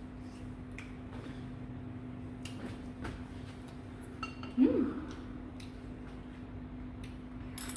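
Room tone with a steady low hum and scattered light clicks of dishes and movement, broken about four and a half seconds in by one short rising-and-falling vocal exclamation.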